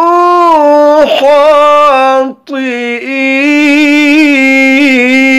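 A man reciting the Quran in a slow, melodic tajweed style, drawing each syllable out into long sung notes. The voice breaks off briefly about two and a half seconds in, then rises again into a held note with a quick wavering ornament.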